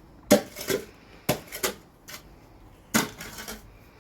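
Irregular sharp knocks and clatters, about nine in all, coming in clusters, the loudest near the start and about three seconds in.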